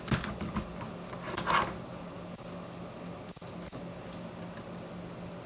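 Plastic parts of a budget mechanical keyboard being handled during disassembly, as a connector inside is unplugged: a few sharp clicks at the start, a brief scrape about a second and a half in, then a few faint ticks.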